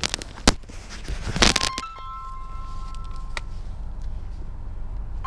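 Phone ringing with a steady two-note electronic tone in repeated bursts of about a second and a half, over a low steady rumble, with a sharp click about half a second in and a brief rustle just before the second ring.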